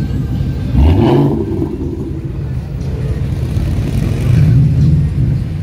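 Sports car engines rolling past at low speed, one briefly revved with a quick rise in pitch about a second in, and another engine swelling louder as a car drives close by about four seconds in.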